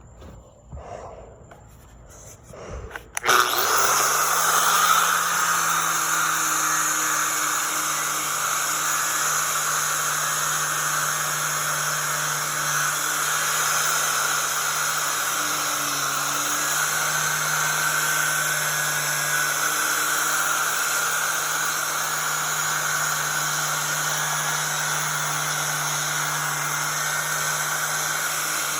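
Milwaukee 11 amp 4-1/2 in. angle grinder with a twisted-knot wire wheel starting up about three seconds in, then running steadily with a wide hiss as the wheel scours paint and rust off metal.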